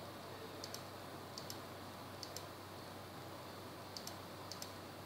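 Computer mouse button clicked five times at uneven intervals, each a quick press-and-release double click, over a steady low electrical hum.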